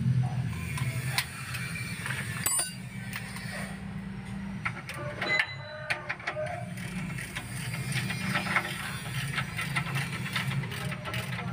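A hand wrench working the bolts of a Daihatsu Gran Max's left engine mount from underneath: irregular metallic clicks and clinks over a steady low hum.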